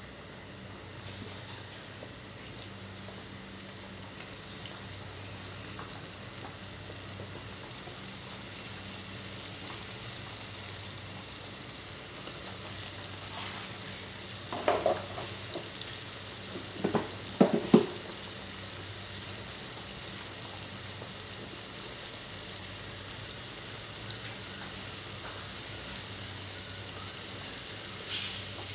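Breaded shrimp deep-frying in a pan of hot cooking oil, with a steady sizzle. A few brief, louder clatters come in the middle.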